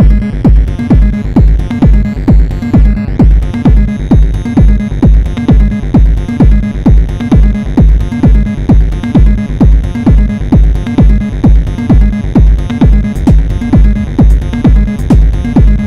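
Techno played live on a Eurorack modular synthesizer: a steady kick drum about twice a second, short ticks between the kicks, and a low repeating synth line.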